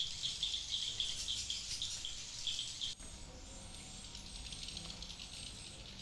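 Many swiftlets chirping together in a dense, high-pitched twittering. About three seconds in the sound cuts abruptly to a thinner twittering with a faint, thin high tone above it.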